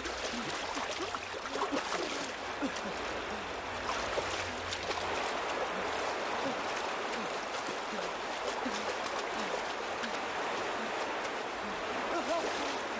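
Steady rush of flowing water, with small gurgles through it.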